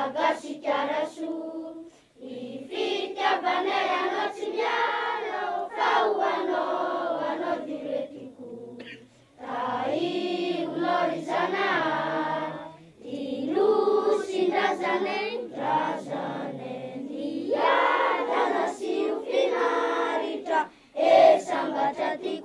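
A group of children singing together, in sung phrases a few seconds long with short breaks between them.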